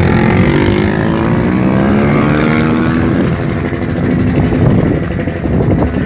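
Motorcycle engines revving while held at a drag-race start line, the engine note climbing and dipping over the first three seconds, then a rougher blend of engine noise.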